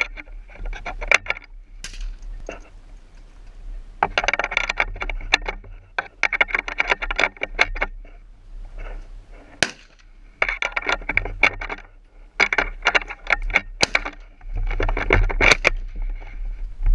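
Mosin-Nagant bolt-action rifle being handled and loaded with cartridges: repeated short bursts of rapid clicking and rattling, with a few single sharp clicks in between, over a steady low rumble.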